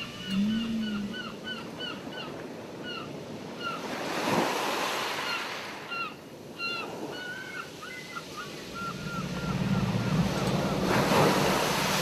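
Ocean surf washing in, with a surge about four seconds in and another near the end. Gulls call over it in quick rows of short mewing cries, about three a second, and a low steady hum comes in during the last few seconds.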